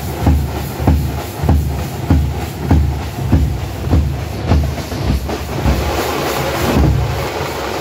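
Tamate frame drums beating a loud, steady rhythm, about one heavy stroke every half second, thickening into denser, continuous pounding in the last couple of seconds.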